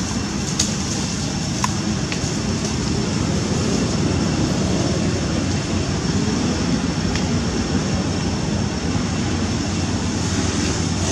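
Steady low rumbling background noise, with a few faint clicks in the first two seconds and one more later.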